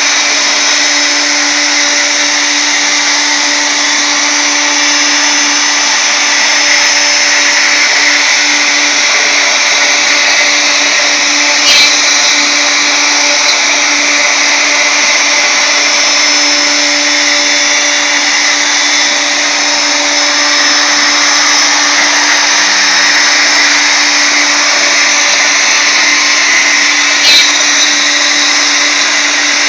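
Wood router motor on a DIY CNC router running steadily with a constant whine while a small ball-nose bit carves a finishing pass in laminated wood. Two brief knocks come through, one near the middle and one near the end.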